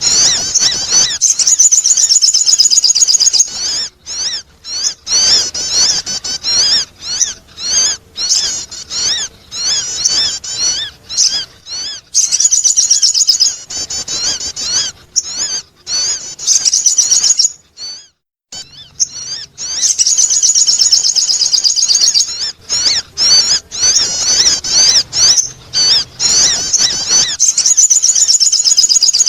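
Sogon bird calling as a lure sound: fast, high-pitched chirping trills in long runs broken by short pauses, with one longer break about two-thirds of the way in.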